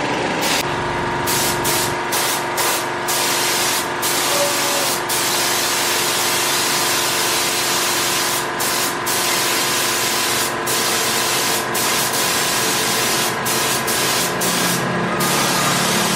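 Spray gun hissing as it lays gold matte paint, thinned 1:1, onto a motorcycle wheel. The hiss cuts out briefly many times as the spraying stops and starts, over a steady motor hum.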